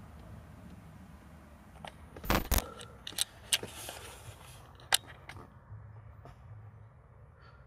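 Handling noises: a few sharp plastic-sounding clicks and rattles, the loudest a double click about two and a half seconds in, with a brief rustle after, over a low steady hum.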